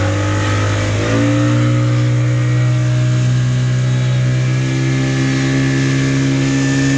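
Speedboat engine revving up about a second in, then running steadily at high speed, with the rush of water along the hull.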